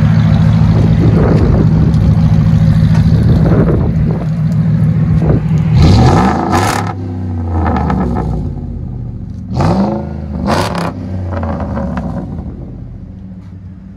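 Dodge Ram 1500 4.7-litre V8 exhaust, run through a 3-inch glass pack and split into dual 2¼-inch pipes with black tips, idling steadily. About six seconds in and again about ten seconds in it is blipped, each rev rising quickly and dropping back to idle.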